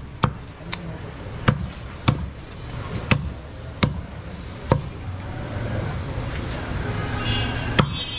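Heavy butcher's cleaver chopping through a goat leg into a wooden log chopping block: sharp, separate whacks at an uneven pace, about seven in the first five seconds. Then the strikes stop and a steadier background noise rises.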